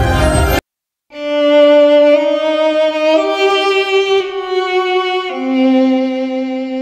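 Background music: a dense passage cuts off abruptly, and after a half-second gap a slow violin melody begins, long held notes stepping to a new pitch about once a second.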